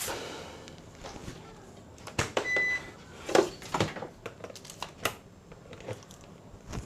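Scattered clicks and knocks from handling the speaker system and its cables, with one short electronic beep about two and a half seconds in.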